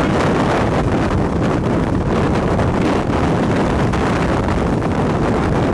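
Strong wind blowing hard across the microphone: a loud, steady rush with rapid buffeting.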